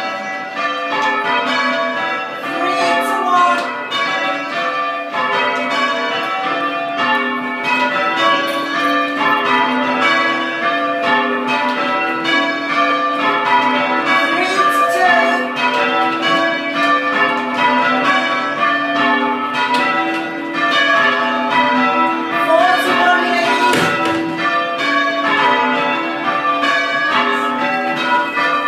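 A ring of church tower bells rung by hand on ropes: a continuous run of overlapping bell strikes in a steady rhythm, each bell ringing on into the next, heard from the ringing chamber.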